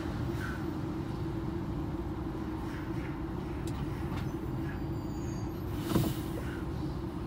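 DAF XF 106 truck's 530 hp inline-six diesel running steadily under way, heard from inside the cab as an even drone. A brief whoosh about six seconds in.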